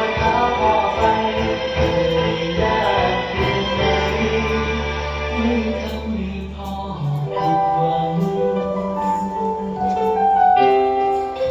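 Music from a Thai song about a father, its melody moving in long held notes over a low bass.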